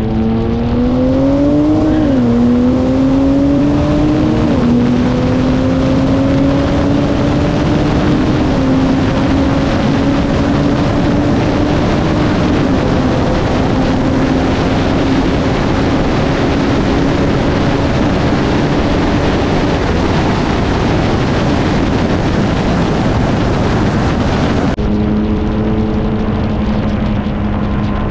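Tuned turbocharged car engine accelerating hard through the gears in a roll race, its pitch climbing and dropping at upshifts about two, four and a half and twelve seconds in. At high speed the engine is buried under a loud rush of wind and road noise, and near the end it settles to a steady, lower note as the car slows.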